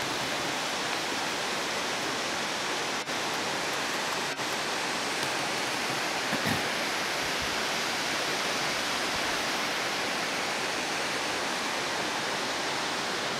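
Steady, even rush of falling water from a meltwater waterfall and its streams, cutting out for an instant twice, about three and four and a half seconds in.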